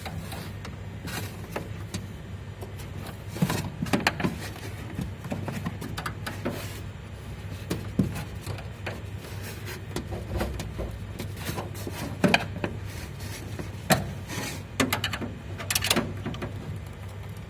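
Sheet-metal guard plate knocking, clicking and scraping against the air-conditioner unit's housing as it is pushed and worked into place, in irregular knocks over a low steady hum.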